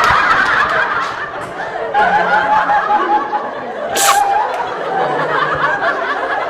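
Giggling and laughter mixed with voices, with one short, sharp burst about four seconds in.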